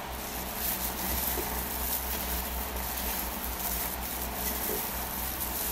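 Thin plastic food-prep gloves crinkling and crushed crackers rustling as balls of mashed banana are rolled by hand in a glass bowl, with a few faint light ticks, over a steady low hum and hiss.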